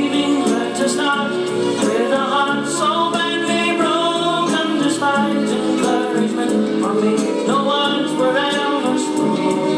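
An older pop song with singing over a regular percussion beat, played back on a GoldStar TSV-3900 boombox from a cassette tape.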